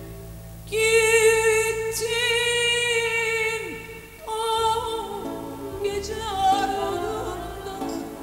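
A woman singing long held notes with vibrato into a microphone, over a quiet sustained accompaniment. A first long note starts under a second in, and a new phrase begins about halfway through.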